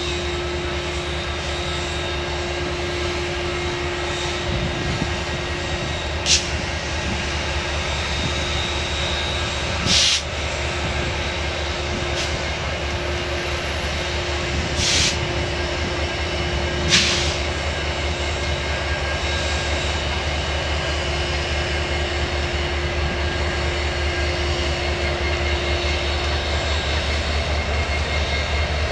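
Union Pacific diesel-electric locomotives, among them an SD70ACe, rolling past at a crawl with their engines running in a steady low drone. Four short sharp noises cut in over the drone in the first two-thirds.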